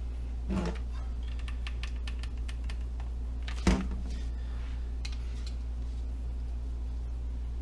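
Light scattered clicks and taps from hands handling tools and parts during a foam RC plane build, with a knock about half a second in and a sharper, louder knock a little over three and a half seconds in, over a steady low hum.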